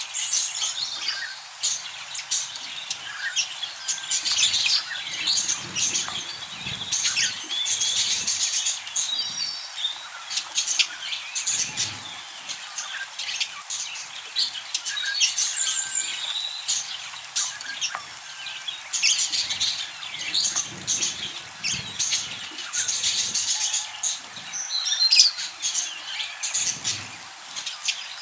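Budgerigars chirping and chattering in a dense, continuous run of quick high chirps and warbles, broken only by brief pauses, with occasional soft low thuds.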